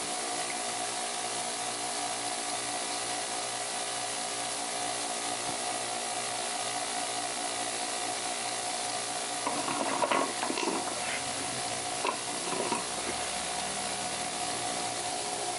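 Radley bench grinder running free with its wire wheel spinning and nothing against it: a steady motor hum with a high hiss. A few short clattering knocks come about two-thirds of the way through.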